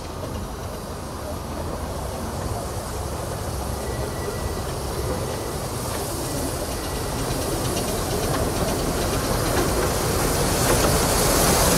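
A miniature 12¼-inch gauge steam locomotive hauling passenger carriages approaches along the track, its running growing steadily louder as it draws near.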